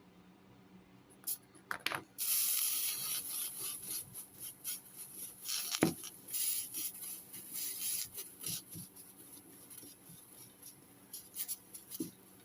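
Hot soldering iron tip rubbed on a sal ammoniac block with flux and solder: a scratchy hiss with small crackles that starts about two seconds in and thins out toward the end, with one sharp click near the middle. The rubbing cleans and re-tins the iron tip.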